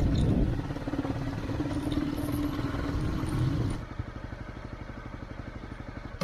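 Motorcycle engine running at low speed with a fast, even beat, dropping to a quieter, steady putter about four seconds in.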